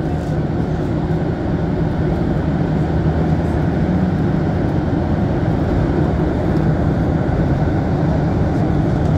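Rubber-tyred MR-73 Montréal Métro train heard from inside the car as it pulls out of a station, a steady low rumble of tyres and running gear that grows a little louder as it gathers speed.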